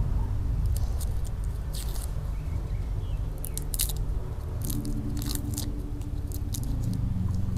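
Small kitchen knife cutting and scraping the papery skins off cloves: scattered short crisp crunches and scrapes, a few in quick clusters. A steady low rumble runs underneath.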